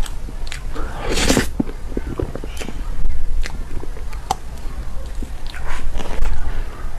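Close-miked eating sounds of soft cream cake: wet mouth clicks and smacks while chewing. Two louder noisy stretches come about a second in and near six seconds.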